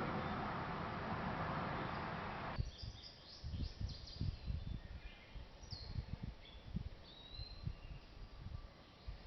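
A steady rushing noise cuts off abruptly about two and a half seconds in. After it, birds chirp now and then over scattered soft, low thumps.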